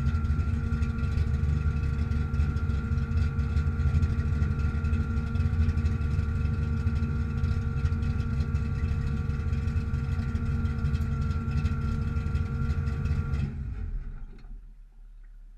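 Ford Mustang engine idling steadily, then switched off about 13 and a half seconds in, the sound cutting off and dying away.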